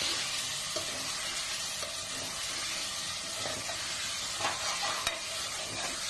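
Diced potatoes and tomatoes with spices sizzling steadily in hot oil in a metal pot, while a spatula stirs and scrapes through them, with a few light knocks against the pot.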